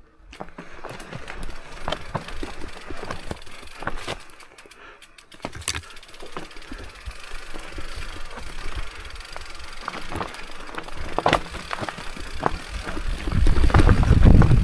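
Mountain bike rolling fast down a rocky, loose-gravel singletrack: tyres crunching over stones and the bike rattling, with many sharp knocks as it hits rocks. A louder low rumble builds near the end.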